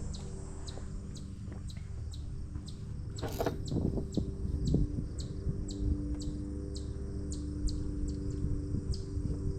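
Short high bird chirps repeating about twice a second, over a steady low hum, with one brief sharp noise about three and a half seconds in.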